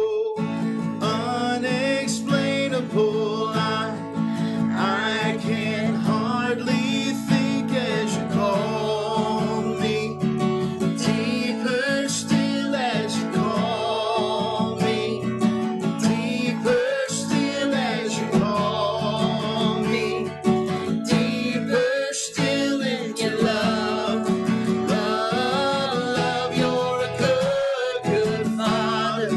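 A worship song: a woman and a man singing together over a strummed acoustic guitar.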